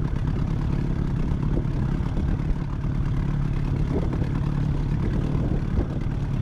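Boat's outboard motor running steadily at low trolling speed, with an even low hum.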